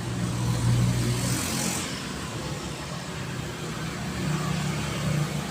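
A motor vehicle engine running steadily as a low hum, with a short burst of hiss around a second in.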